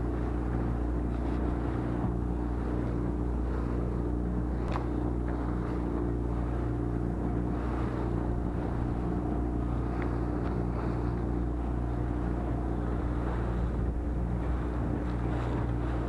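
A small fishing boat's motor running at a steady speed, a low, even drone, with water rushing past the hull as the boat moves through choppy water.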